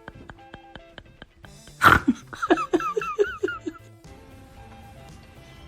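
Background music with a light plucked, ticking beat; about two seconds in a sudden loud burst cuts across it, followed by a quick run of about seven short high-pitched calls.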